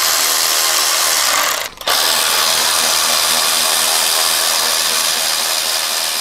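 Milwaukee M12 cordless electric ratchet spinning an 8 mm socket to run out the worm-drive hose clamps that hold an exhaust heat shield on. It runs steadily, stops briefly about a second and a half in, then runs on.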